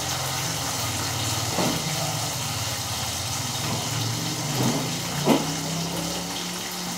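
Pork chops sizzling in hot oil in a frying pan, a steady hiss over a low hum. Two short knocks, the louder one about five seconds in.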